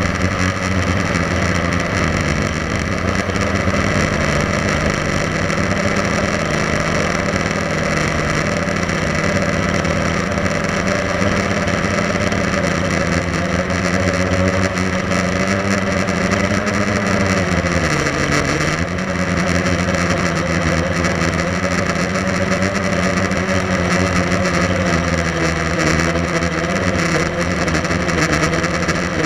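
Blade 350 QX3 quadcopter's motors and propellers buzzing steadily, heard close up from the camera on board. Partway through, the pitch dips sharply and climbs back as the motors slow and speed up again.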